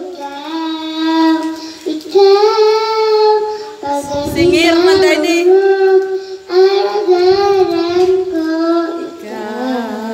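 A young girl singing a song into a handheld microphone, holding long notes of about a second each with short breaths between them.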